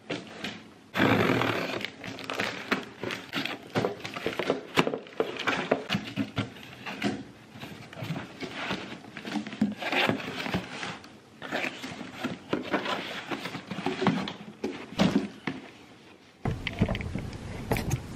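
Cardboard shipping box being opened and unpacked by hand: irregular rustling, tearing and scraping of cardboard with short knocks and clicks. Near the end the sound changes abruptly to a steadier background.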